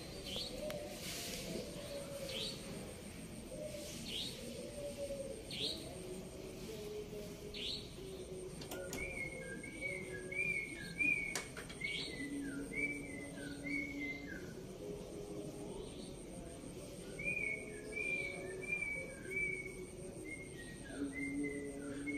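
Sooty-headed bulbul singing two runs of quick, liquid whistled notes, one about nine seconds in and one about seventeen seconds in, over steady low cooing of doves and a short high call repeated about every second and a half.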